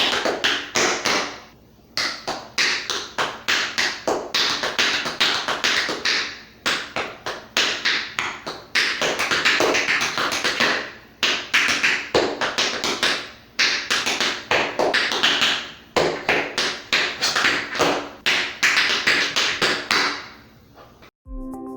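Metal taps on tap shoes striking a hard floor in fast rhythmic phrases of a tap dance routine, broken by brief pauses. Near the end the tapping stops and electronic dance music begins.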